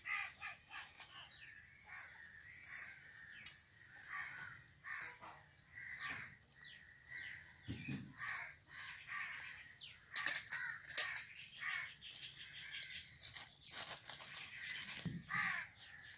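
Birds calling repeatedly, many short calls overlapping and scattered throughout.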